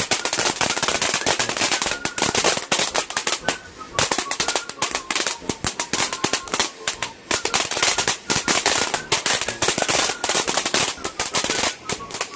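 Ground fountain firework crackling rapidly and irregularly as it sprays sparks, a dense rattle of small pops.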